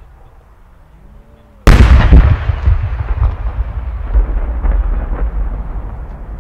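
A No. 10 (about 30 cm) Japanese aerial firework shell bursts with a single heavy boom about a second and a half in. A long rolling echo follows and slowly fades.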